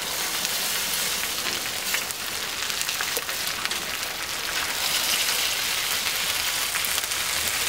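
Chicken juices and fat sizzling steadily on a hot lava-rock grill stone, with a few light clicks of a metal spatula against the stone as it works under the bird.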